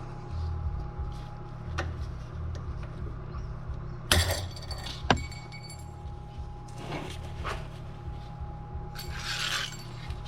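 Metal tools and parts being handled: a clanking hit with a short metallic ring about four seconds in, a sharp click a second later, a few lighter knocks, and rustling near the end, over a steady low hum.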